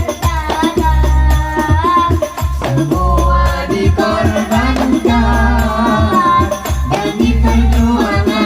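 Sholawat sung with hadrah percussion: a solo voice in long, ornamented held notes over frame drums and a deep, steady bass.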